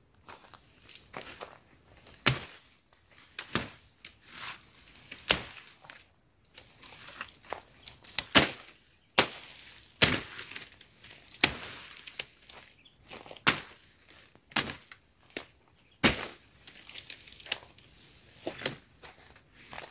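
Machete slashing through undergrowth: sharp, irregular cutting strokes, roughly one a second, with the rustle of cut vegetation between them.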